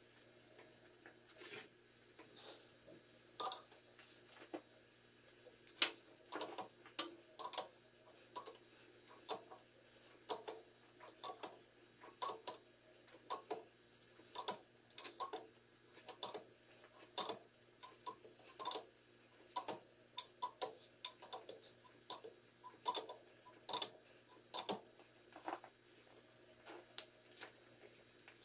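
Hand ratchet clicking in short runs as it is worked back and forth on a head stud in the engine block, trying to back the stud out.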